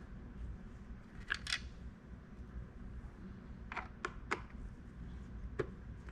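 Small sharp clicks and taps, two about a second and a half in, three in quick succession near four seconds, one more near the end, as T15 Torx screws are worked out of a plastic center console lid.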